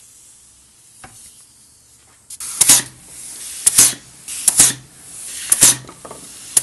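Homemade quick exhaust valve (QEV) on compressed air, firing short, sharp blasts of air about once a second, about five in all, with a steady hiss of air between the blasts. The blasts begin after a quiet first two seconds.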